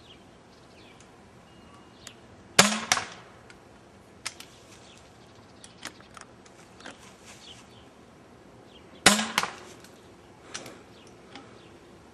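Pump-action 12-gram CO2 paintball pistol firing two shots about six and a half seconds apart, each a sharp pop followed at once by a second crack. Fainter clicks and knocks come in between.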